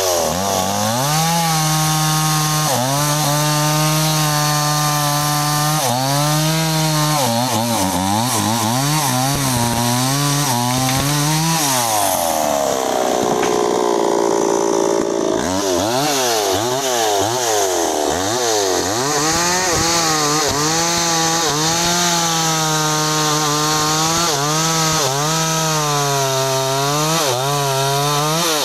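New West 628 two-stroke chainsaw cutting through sengon wood, its engine pitch sagging under load and picking up again over and over. For a few seconds near the middle the pitch climbs higher, then the dips under load return.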